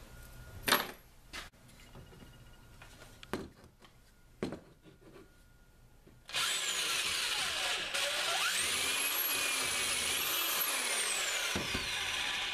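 Black+Decker corded drill boring a hole through a 3/4-inch schedule 40 PVC fitting. It runs steadily for about six seconds in the second half, its motor whine rising and falling in pitch as the speed changes, then stops abruptly. Before it starts there are a few light clicks and knocks of parts being handled.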